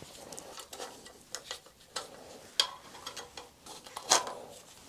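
Scattered light metallic clicks and taps of an Allen key and small bolts as the timing covers on a Yamaha Virago 535's rear cylinder are undone, with soft rubbing between. The sharpest clicks come about two and a half and four seconds in.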